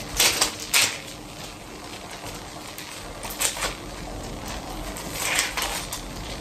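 Kitchen handling noises: three short bursts of clatter and scraping, the first near the start and the last about five seconds in, over a faint steady hum.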